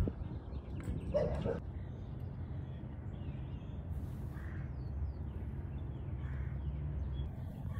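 A short animal call about a second in, with fainter calls later, over a low steady rumble.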